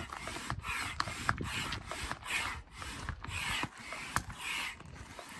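Manual air pump inflating an inflatable kayak: steady, rhythmic strokes of rushing air, about two to three a second.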